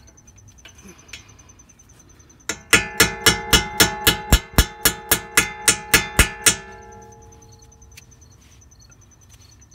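A small hammer tapping a steel brake-pad retaining pin through a Mercedes S550 front brake caliper: a quick run of about twenty metallic taps, about five a second, beginning about two and a half seconds in and stopping about four seconds later, with the caliper ringing on briefly after. The taps drive the pin until it is fully seated through both pads.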